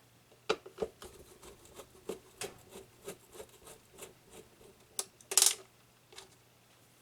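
Clicks and rubbing from the opened Sony PS-LX220 turntable's plastic chassis and mechanism being handled, roughly three clicks a second, with one louder scrape about five and a half seconds in. A faint steady hum runs underneath.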